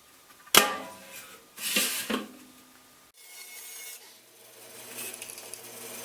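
A thin metal baking tray knocks down onto a paper-covered ring magnet with a short ringing clank, then is slid and rubbed against it with a brief scraping sound. A steady low hum follows.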